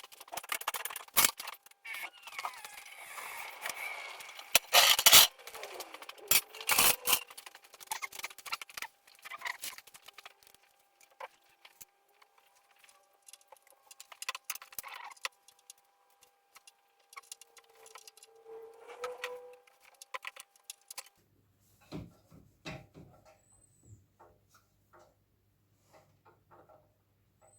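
Irregular knocks, clicks and scrapes of tools and containers being handled, loudest and busiest in the first several seconds and sparser near the end.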